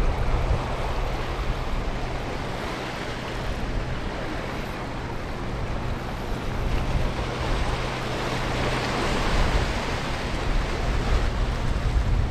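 Waves washing and breaking over the rocks at the foot of the pier, with wind buffeting the microphone.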